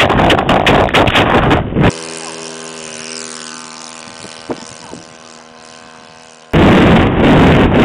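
A radio-controlled model airplane's engine droning at a steady pitch and fading as the plane climbs away. It is framed by two stretches of loud, harsh rushing noise from a small onboard camera's microphone, one for the first two seconds and another from about two-thirds of the way in.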